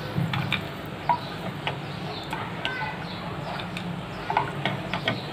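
Wooden spatula stirring almonds and cashews fried in hot ghee in a nonstick pan: scattered light clicks and scrapes over a faint steady hiss.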